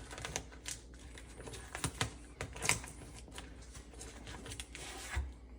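Masking tape being handled and pressed onto a cabinet face frame: irregular light clicks and crinkles, a few louder ones in the middle.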